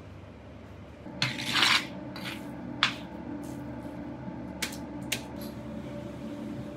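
A metal utensil scraping and clinking against a kazan while stirring frying diced meat and vegetables: a loud scrape about a second in, then a few sharp clinks.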